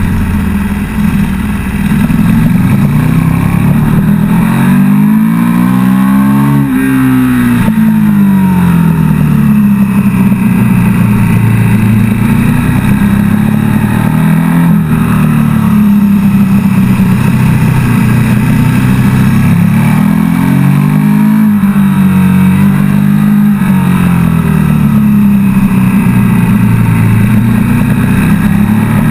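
KTM 1290 Super Duke GT's V-twin engine at track pace, heard from on board, its pitch climbing and falling again and again as the rider accelerates out of corners and rolls off into the next.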